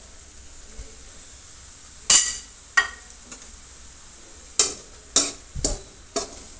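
A perforated metal spoon stirring semolina in an oiled metal kadhai, roasting it: sharp scrapes and clinks of metal on metal, the loudest about two seconds in and a quick run of them near the end, over a faint steady hiss.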